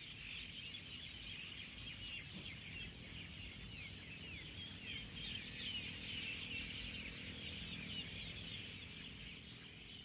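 A dense chorus of many small birds chirping at once, with short overlapping calls, over a low rumble.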